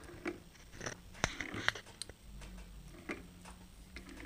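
Singer 111W153 walking-foot sewing machine turned over slowly by hand at the handwheel: scattered light clicks and taps from the needle-bar and presser-foot mechanism, the loudest about a second in.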